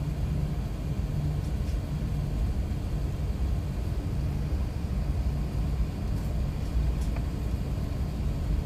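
Steady low rumble inside an Airbus A380's cabin as it taxis on the ground, with a low hum that comes and goes.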